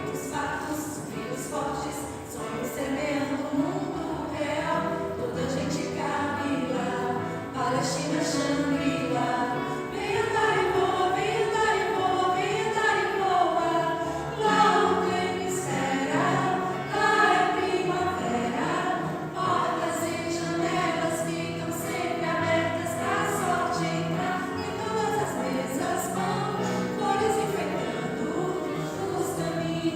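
Choir singing with musical accompaniment, several voices moving together over steady low notes.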